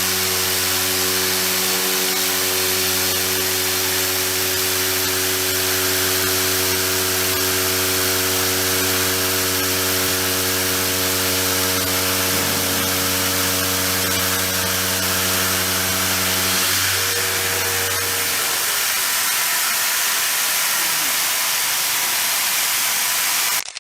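SDV-HLA machining center heavy milling: a steady machine hum with several held tones under a loud, even hiss. The tones stop about three-quarters of the way through as the cut ends, while the hiss continues, then the sound cuts off abruptly near the end.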